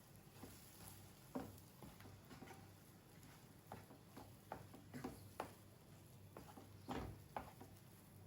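Faint, irregular light taps and clicks over a low steady hum, a dozen or so in all, the loudest a little over a second in and about seven seconds in.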